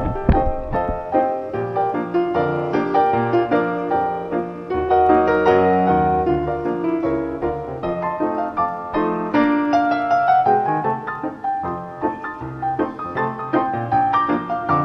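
Background music led by a piano playing a quick, continuous run of notes. Low watery rumbling sits under it in the first second, as the camera comes up from underwater.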